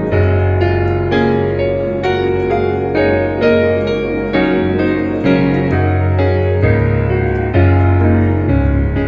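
Gentle piano music, notes and chords struck about every half second over held low bass notes, with faint high clicks that fit a fire crackling underneath.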